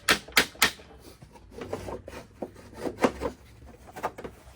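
Three quick sharp taps, then scattered lighter knocks and rubbing as lawnmower parts are handled.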